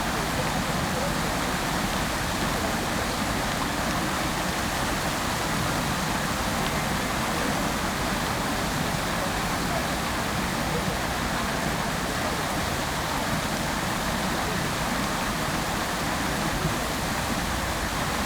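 Fountain water jets falling into the basin: a steady, dense rush of splashing water.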